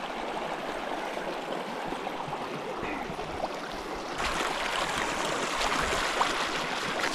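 River water rushing over rocks, a steady hiss that gets louder about four seconds in.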